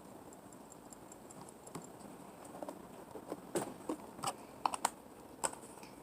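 About nine scattered light clicks and taps, irregularly spaced and mostly in the second half, from small objects being handled.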